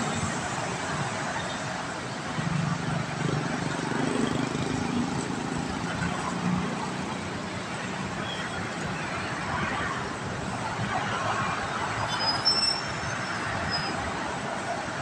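Steady roar of multi-lane city traffic, with cars, motorcycles and buses passing. A heavier vehicle's low engine drone swells for a few seconds near the start.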